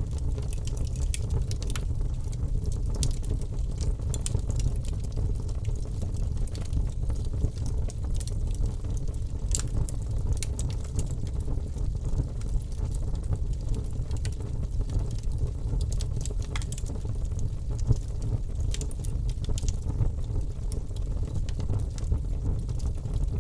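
Wood fire crackling in a fireplace: a steady low rumble of the burning fire with many scattered sharp pops and snaps.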